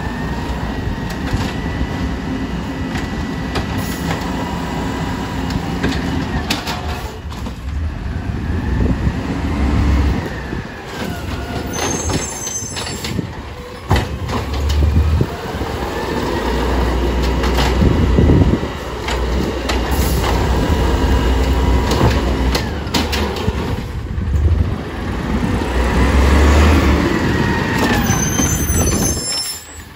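Automated side-loader garbage truck's diesel engine running, revving up and down again every few seconds as it drives the hydraulics for the arm, with a whine that rises and falls with each rev. A few sharp knocks ring out in between.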